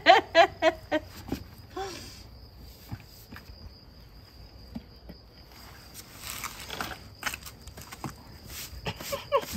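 A woman laughing briefly, then powdered lime plaster scooped from a sack and tipped into a plastic bucket: light scraping clicks and a soft pouring hiss about six seconds in. A faint steady high insect trill runs underneath.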